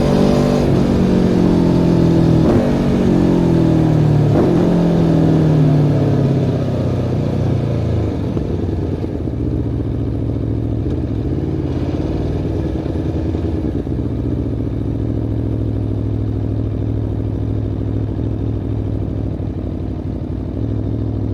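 Aprilia Tuono V4 1100 Factory's V4 engine through its Akrapovic exhaust, recorded close to the exhaust: the revs fall for the first six seconds or so, then it settles into a steady low-revving note.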